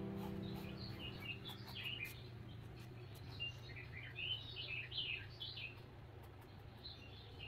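Birds chirping and twittering faintly in quick short calls from about one second in until near the end, over the fading tail of a held music chord.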